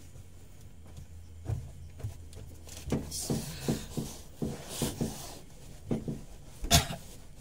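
Bumps and rustling from a person lying down and shifting on a truck cab's sleeper bunk, with the plastic sheet on the bunk crinkling, over a low steady hum. The knocks come several times a second in the middle, and the loudest comes near the end.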